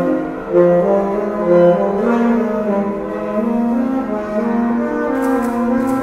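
Brass instrument music: a slow melody of held notes.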